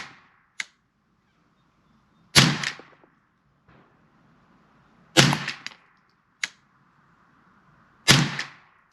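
Ruger 10/22 rifle firing .22 LR SK match ammunition: three single shots about three seconds apart, each with a short echo. Small sharp clicks come between shots.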